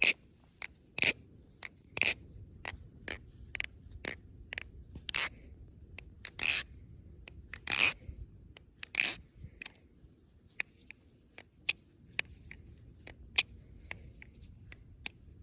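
Atropos Kratos 2 balisong being flipped: its G10 handles and blade clack and click against each other in a string of sharp hits. A few hits in the middle are louder and longer, and in the last few seconds lighter, quicker ticks follow.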